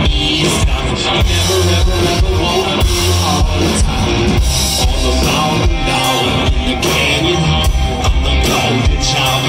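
Live rock band playing loud through a stage PA: drum kit, electric guitar and bass guitar, with a singer's voice on the microphone.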